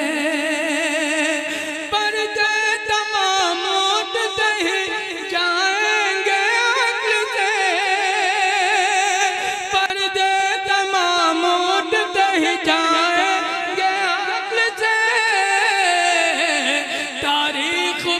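A man sings a naat solo in classical style, with no instruments. He draws out long, ornamented notes whose pitch wavers quickly, and the melody shifts to new pitches about two seconds in and again near the end.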